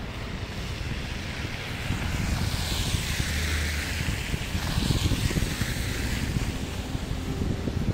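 A car passing close by on a slushy, snow-covered road: its tyre hiss swells and fades over a few seconds, above a steady low rumble.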